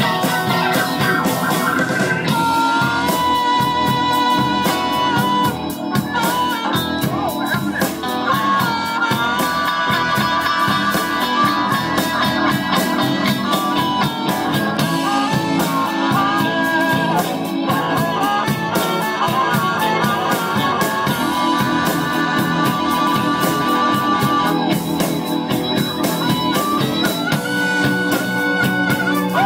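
Live blues band playing an instrumental passage, an electric guitar line bending and sustaining over the band.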